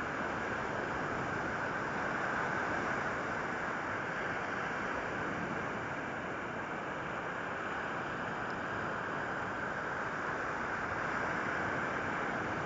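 Steady rushing of sea surf mixed with wind on the microphone, an even noise that holds at a constant level throughout.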